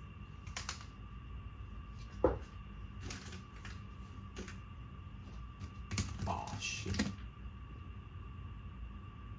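Plastic 3x3 speedcubes clicking and knocking as they are handled, turned and set down on a desk. The clicks come irregularly, with the sharpest knock about two seconds in and a busier cluster around six to seven seconds.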